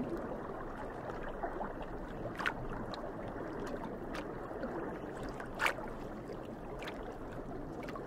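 Steady underwater water noise, with a few faint clicks, the loudest about five and a half seconds in.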